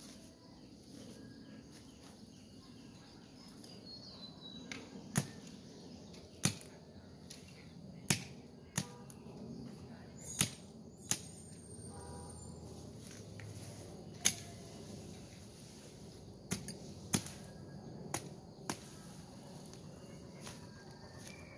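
Sharp chopping strikes of a hand blade cutting into bamboo and brush, about a dozen at uneven intervals, starting about five seconds in.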